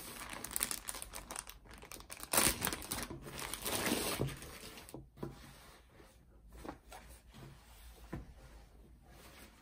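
Clear plastic bag crinkling as hands open it and slide out a pair of folded jeans, loudest in the first half. Then quieter rustling with a few light taps.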